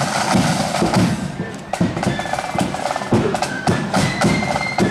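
Marching band drums playing a steady march beat: bass drum thuds with snare drum rolls and rattles, and a few high notes joining near the end.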